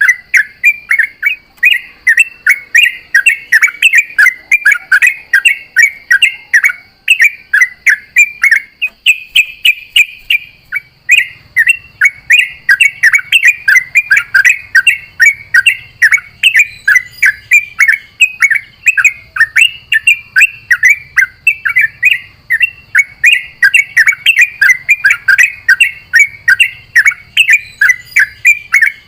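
Yellow-vented bulbul (trucukan) singing a fast, unbroken string of short, bubbling chattering notes, about four a second: the long 'ropel' run of a bird in full song.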